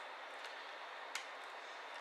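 Two small clicks over a steady faint hiss, the sharper one a little after a second in: plastic or metal laptop parts and tools clicking as they are handled during disassembly.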